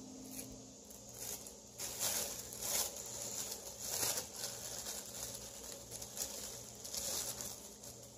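Thin clear plastic bag crinkling and rustling in irregular bursts as a hand rummages inside it.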